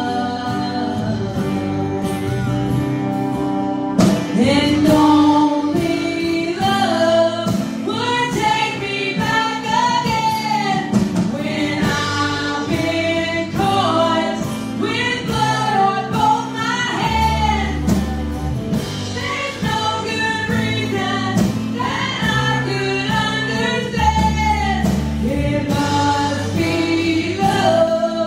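Live gospel worship band: several voices, mostly women's, singing together over keyboard and band accompaniment, with a trombone playing.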